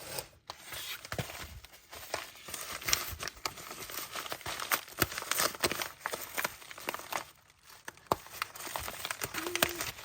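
Packaging crinkling and rustling as it is handled and opened, with many small sharp clicks and a brief lull near the end.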